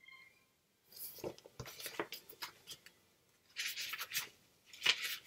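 Paper pages of a picture book rustling and scraping as the book is handled and a page is turned, in a run of short rustles starting about a second in, the loudest near the end.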